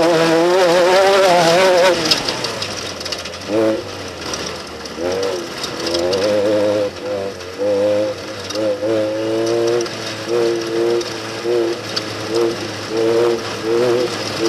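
Off-road race vehicle engines revving. One runs steadily for the first two seconds, then comes a series of short throttle bursts that rise and fall in pitch over a steady low drone.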